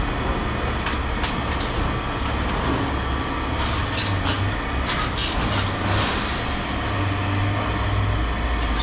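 A steady low engine rumble, like a vehicle or machine idling, with scattered light clatter over it.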